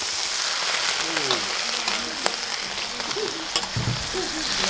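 Chopped chicken sizzling in hot oil in a wok just after it is tipped in, a steady hiss, with a metal spatula clicking and scraping against the pan a few times as it is stirred.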